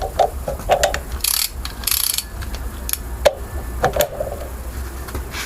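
Wrench work on the differential's ring gear bolts: a run of sharp metallic clicks and clinks, with two short ratcheting rasps about a second and two seconds in.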